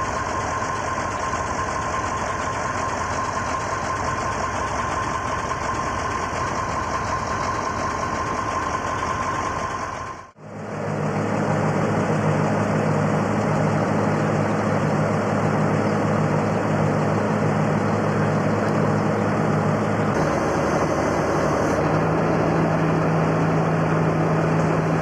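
Diesel lorry engines idling. The sound drops out briefly about ten seconds in, where the footage cuts to another clip, and is then a steady low drone with a regular pulse.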